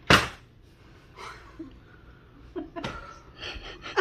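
People laughing softly and murmuring around a table, with a short loud burst of sound right at the start.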